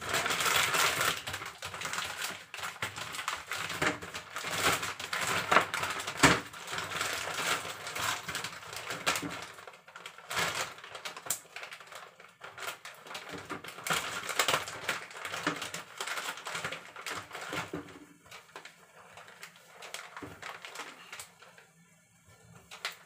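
Plastic bags crinkling and rustling as they are handled and packed, a dense crackle, thinning near the end to quieter, sparse clicks as a zip-top bag is pressed shut.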